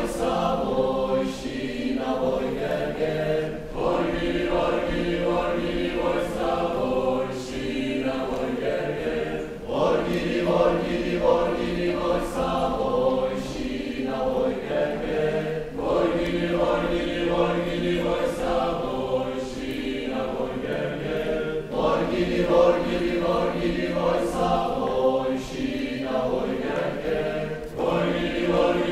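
Mixed choir of men's and women's voices singing a polyphonic folk song a cappella, in parts, in repeating phrases about every six seconds.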